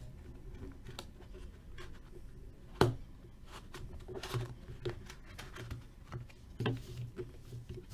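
Trading cards and card boxes being handled on a tabletop: soft sliding and rustling, with a sharp knock about three seconds in and another near the end.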